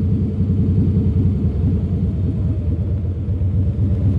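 Harley-Davidson Softail Deluxe V-twin engine running at low road speed, a steady pulsing exhaust rumble that eases off as the bike slows.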